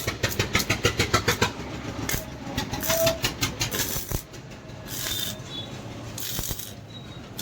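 Rapid, even hammer blows on steel, about five or six a second, with a pause and then a few scattered knocks. This is a spear head being forged from a truck leaf spring.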